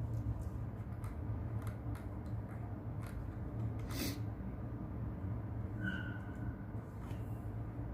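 Steady brown-noise rumble under scattered light clicks of keyboard typing, with one louder click about four seconds in. A brief faint high tone sounds near six seconds.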